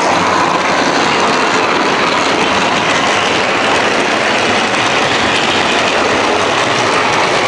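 MTH O-gauge model subway train running on its track, giving a steady, even noise of motor and wheels.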